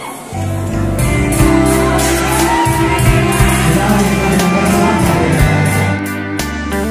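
Instrumental song intro played loud through a PA system in a large hall, starting abruptly just after the start, with bass, chords and a steady drum beat.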